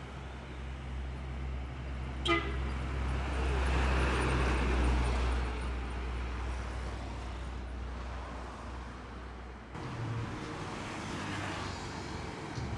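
A heavy truck's diesel engine drones as a Hino 500 drives past, swelling and then fading, with one short horn toot about two seconds in. Near ten seconds the sound changes abruptly to another truck's engine running.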